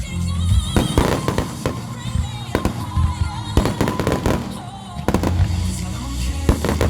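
Fireworks display: a rapid series of aerial shell bangs and crackles, one after another, with music playing alongside.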